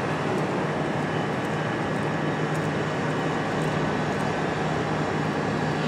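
Electric multiple-unit train giving a steady hum and rumble, with a constant high whine over it that does not change in level.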